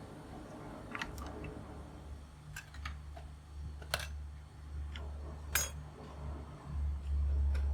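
Scattered small sharp clicks and taps of tools and parts being handled on a workbench, over a low steady hum that swells near the end.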